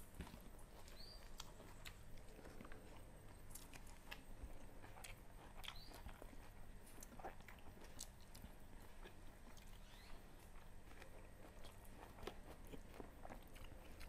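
Faint chewing and mouth sounds of people eating rice with stir-fried chicken liver and chicken feet by hand, with many small scattered clicks and lip smacks.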